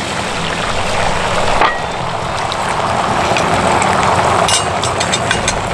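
Beaten eggs with chopped green onion sizzling as they are poured into hot oil on a flat griddle plate, a steady sizzle that swells as the egg spreads, with a light knock about one and a half seconds in.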